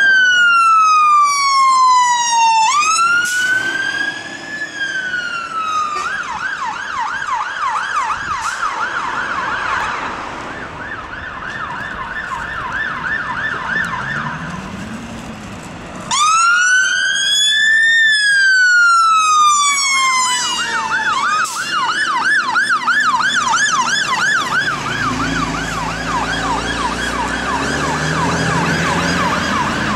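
Fire engines' electronic sirens on an emergency run. A Scania P280's wail sweeps slowly up and down, then switches to a fast yelp that fades away. A second appliance's siren then starts abruptly on the wail and changes to the yelp, with a diesel engine rumble under it near the end.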